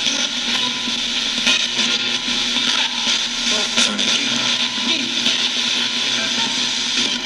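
Radio Shack 20-125 radio sweeping the FM band as a ghost box, played through a guitar amp. Steady rushing static is broken by scattered clicks and brief snatches of broadcast voices.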